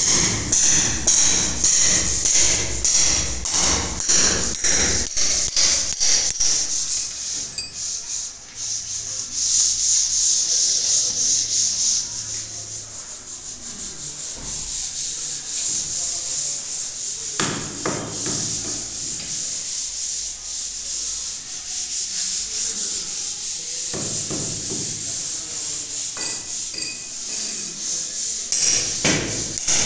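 Quick, repeated rubbing or scraping strokes, about three a second, then a steadier stretch of rubbing, with a few single knocks later on.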